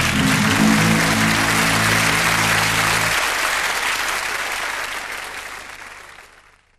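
Audience applauding over the end of the theme music; the music stops about three seconds in and the applause fades out near the end.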